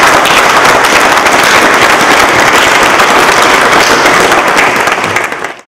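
A small group of people applauding: dense, steady hand clapping that cuts off suddenly near the end.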